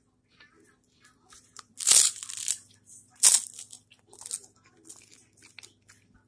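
Crunching bites into a PB&J sandwich made on puffed rice cakes, chewed close to the microphone: two loud crunches about two and three seconds in, then smaller crunches as it is chewed.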